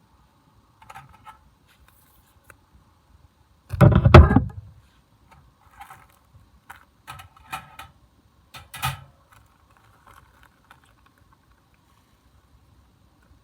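Scattered handling noises: short clicks and rustles, with one louder rustling bump about four seconds in and another near nine seconds.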